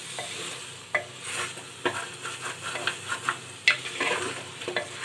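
A spatula stirring and scraping mutton and potatoes through thick masala in a pressure cooker pot, with a soft frying sizzle underneath and irregular knocks of the spatula against the pot. The potatoes are being fried (bhuna) in the masala.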